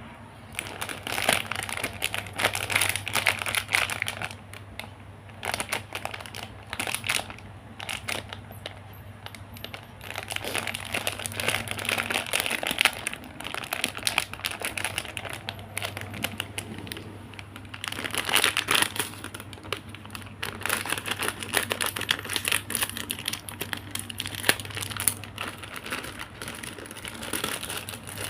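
Packaging crinkling and rustling as it is handled, in several spells of dense crackly bursts, over a steady low hum.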